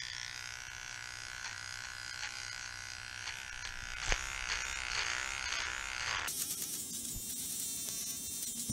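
Cordless electric hair trimmer buzzing steadily as its blade is worked over the frayed edge of a rip in denim jeans. The buzz turns harsher and noisier about six seconds in.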